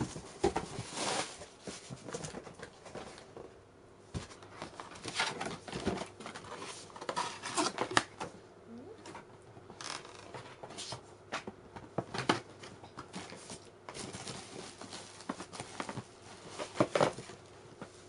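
Cardboard box and packaging being handled and opened: irregular rustling and scraping with scattered sharp clicks and knocks, the loudest a few seconds before the end.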